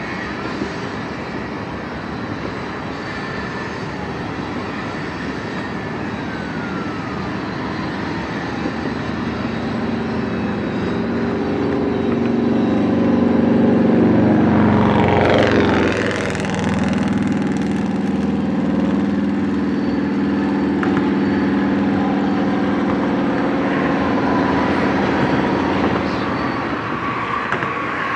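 Canadian Pacific diesel-electric locomotive passing close by: its engine drone grows louder as it approaches, and its pitch drops sharply as it goes by about halfway through. After that a steady rumble of loaded tank cars rolling past on the curve continues, with the engine fading away.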